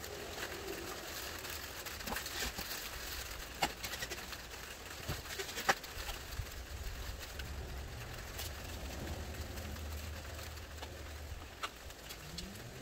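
Steady background hiss with scattered light taps and clicks, and a bird's low cooing calls near the end.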